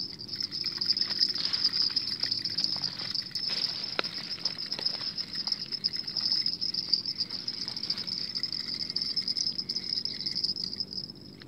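Steady high-pitched chirring of insects, with irregular rustling and light knocks close to the microphone throughout.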